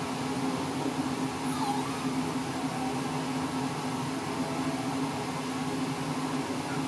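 Steady low mechanical hum of room background noise, even throughout with no distinct events.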